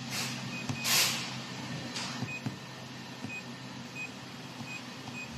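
Steady low hum of the fiber laser welding machine's cabinet running, with short faint beeps from its touchscreen keypad as digits are tapped in. A brief hiss about a second in is the loudest moment.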